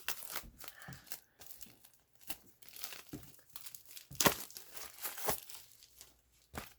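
A music album's packaging being torn open and crinkled by hand: irregular rustling and tearing with small clicks, the loudest burst about four seconds in.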